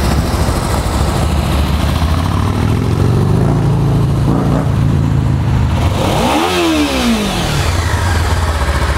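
2013 Kawasaki Ninja 300's liquid-cooled two-cylinder engine running at idle. The throttle is opened gently around three seconds in, then blipped once about six seconds in, the revs rising quickly and falling back to idle.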